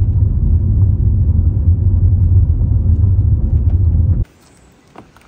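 Car cabin noise while driving: a steady low rumble of tyres and engine heard from inside the moving car. It cuts off suddenly about four seconds in.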